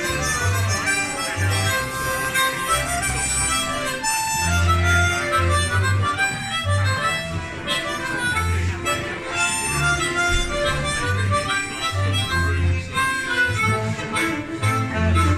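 Folk band playing a happy schottische, a melody line over a pulsing bass rhythm.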